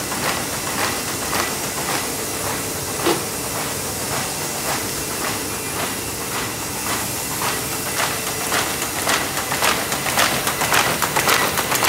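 Paper-handling machines in a print shop running: a steady hiss and clatter with a regular ticking as sheets are fed through, the ticks growing louder near the end.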